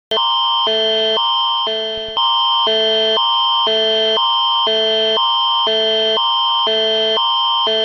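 Emergency alert broadcast attention tone: a harsh electronic alarm that starts abruptly and switches back and forth between two pitches about every half second over a steady high tone.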